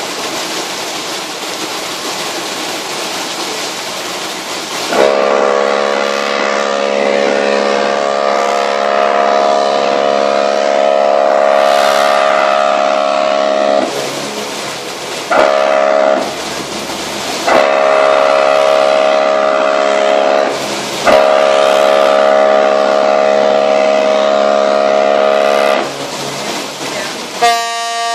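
Deep ship's horns sounding long, chord-like blasts as a ship leaves port, broken by a few short pauses; before them there is a steady rushing noise. Near the end a different, higher-pitched horn starts up.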